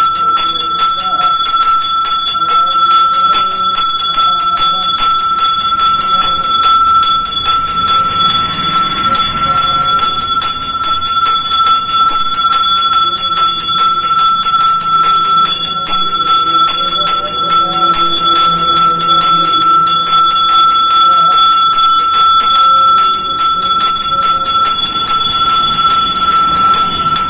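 Temple puja bell ringing continuously and loudly, a steady unbroken ring, as during the deity's ritual bathing. Voices are faintly heard underneath.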